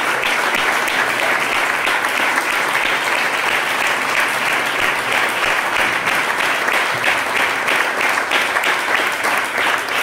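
Audience applauding steadily: many hands clapping.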